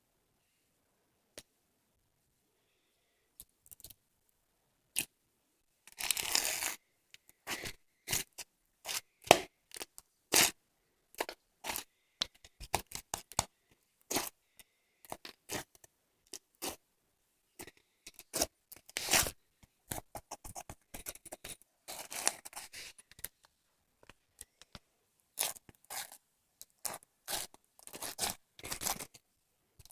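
Slime being squeezed, stretched and poked by hand, giving a busy run of short crackling clicks and pops that starts about six seconds in.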